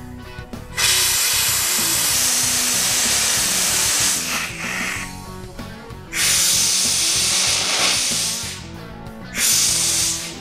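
Steam from a homemade gas-fired boiler at about 10 atmospheres, released through a hand valve. It comes in three loud hissing blasts: one of about three seconds, a second of about two and a half seconds, and a short one near the end.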